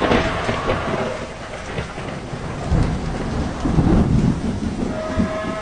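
Heavy rain pouring steadily, with a low rumble of thunder swelling about three seconds in.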